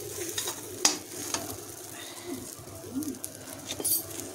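Sliced mango pieces frying in oil in a kadai with a steady sizzle. A metal spatula stirs them, clicking and scraping against the pan a few times.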